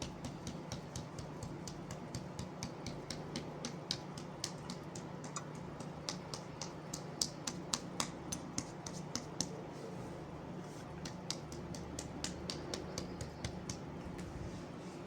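Rapid light tapping or clicking, about three sharp clicks a second, thinning out after about ten seconds.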